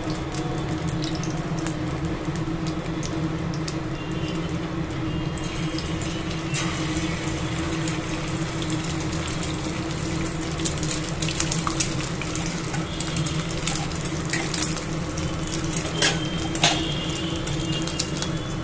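Egg sizzling as it fries in oil on an iron tawa, the sizzle picking up about five seconds in, over a steady low hum. A few clatters and scrapes near the end as a paratha is laid on top of the egg.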